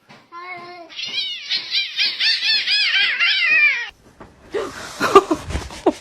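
A cat mewing in a rapid run of short, high calls, about four a second, that cut off suddenly about four seconds in. Near the end comes a stretch of rustling noise and knocks, with one loud thump.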